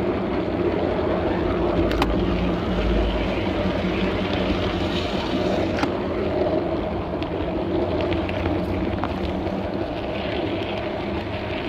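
Garden-railway model train running along its track: a steady mechanical hum from the running gear, with a few sharp clicks about two, six and nine seconds in.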